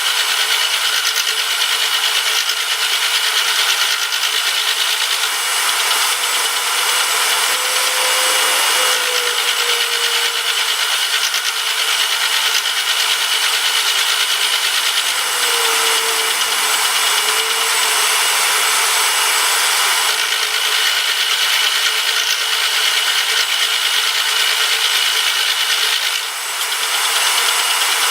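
A power tool working metal, running steadily with a continuous rasping noise and a brief dip near the end.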